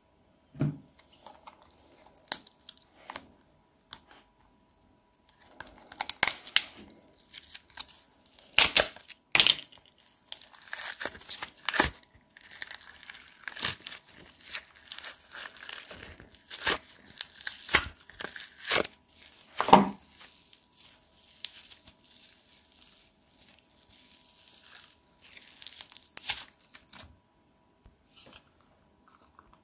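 Hands squishing, stretching and pulling apart slime, including a green slime packed with foam beads, giving irregular sticky crackles, pops and snaps. The sound is sparse at first, busiest through the middle, with one louder snap about two-thirds of the way in.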